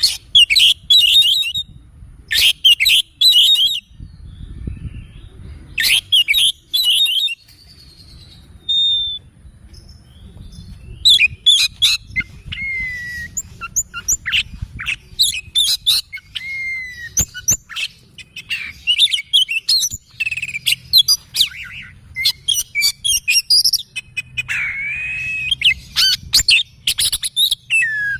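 Oriental magpie-robin (kacer) singing: loud, varied phrases of clear whistles, sliding notes and rapid harsh chatter, in separate bursts at first and nearly continuous from about ten seconds in. A steady low rumble runs underneath.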